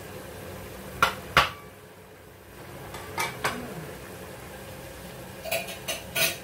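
Cooking utensil knocking and clinking against a cooking pan: two sharp knocks about a second in, two more around three seconds, then a quick run of clinks near the end.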